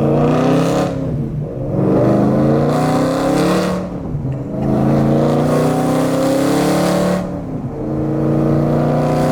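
BMW M3 engine accelerating hard through the gears. Its pitch climbs in each gear and drops back at three upshifts.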